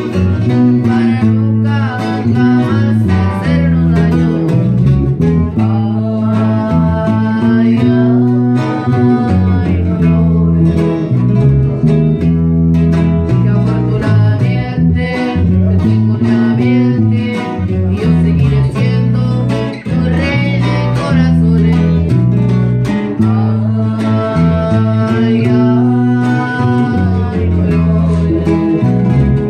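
A man singing to a strummed nylon-string acoustic guitar, with an electric bass guitar playing a stepping bass line underneath.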